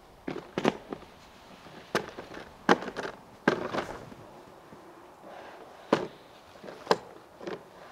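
A series of irregular sharp knocks and crunches, about a dozen spread unevenly over several seconds.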